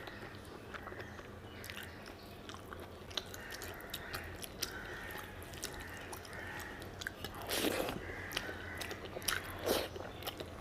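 Close-up mouth sounds of a person chewing a mouthful of mutton curry and rice, with many small wet clicks. Two louder, longer noisy sounds come about three quarters of the way through.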